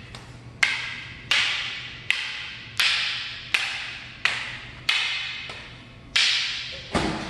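Rattan Kali fighting sticks clacking against each other, about ten sharp wooden strikes at an even pace of roughly one and a half per second. It is a double-stick drill on the full beat, with stick meeting stick strike for strike.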